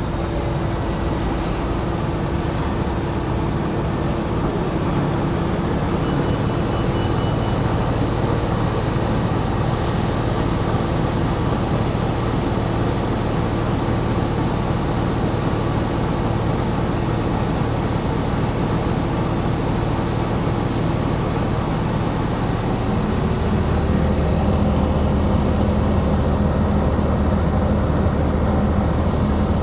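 2020 New Flyer XD60 articulated diesel bus running in service, its engine drone and road noise steady. The engine tone shifts about a quarter of the way in, and about three quarters through a deeper, slightly louder drone sets in as the engine takes more load.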